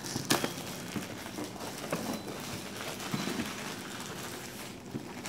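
Plastic shrink-wrap crinkling and crackling as it is peeled and torn off a cardboard box, with one sharp crackle near the start.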